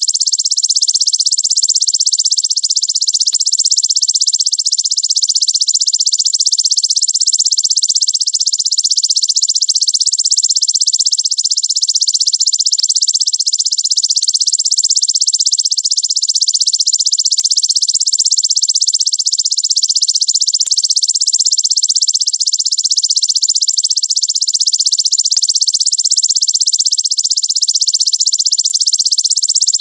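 Belalang raja (king grasshopper) stridulating: a loud, high-pitched, unbroken buzzing trill, very fast and dense, holding steady throughout.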